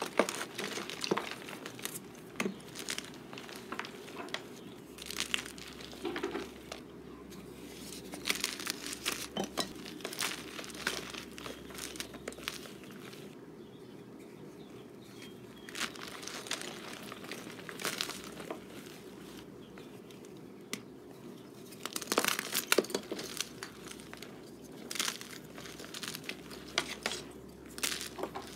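Homemade chalk bombs (pressed blocks of powdered chalk) being crushed and crumbled by hand in a tray of loose chalk: irregular soft crunches and crumbling, with a denser, louder run of crunches about 22 seconds in.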